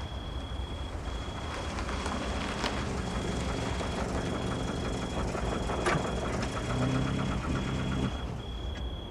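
A car's electronic warning chime sounding as long, even beeps about once a second, over a low rumble, with a couple of knocks.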